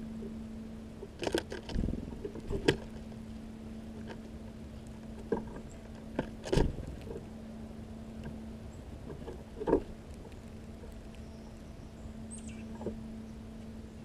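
Scattered sharp taps and thumps of a tufted titmouse hopping and pecking among the seeds on a small wooden feeder floor, with a steady low hum underneath.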